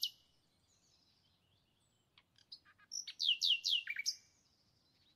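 A small bird chirping: a quick run of high chirps that stops right at the start, then a short burst of chirps with three falling whistled notes about three seconds in.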